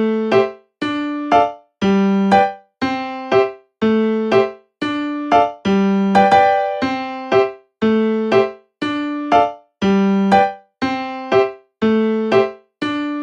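Background music: a keyboard playing a gentle repeating phrase of short notes, about one a second, each dying away before the next.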